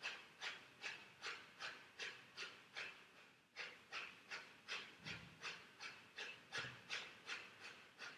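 Breath of fire (kapalabhati): rapid, forceful rhythmic exhales through the nose, about two to three a second, held at an even pace.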